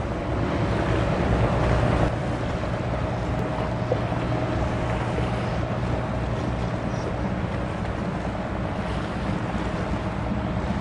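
Steady low drone of a small chemical tanker's diesel engine as the ship passes close by, with a faint steady whine above it. The drone is mixed with the rushing of its bow wave and wind on the microphone.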